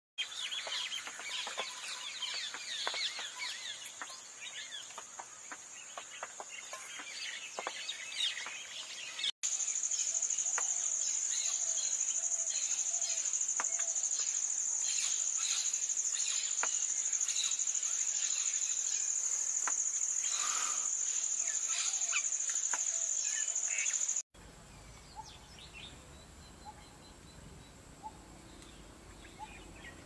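Red-whiskered bulbul calls and chattering notes over a steady high-pitched whine. The sound changes abruptly twice, and the last few seconds are quieter, with only scattered calls.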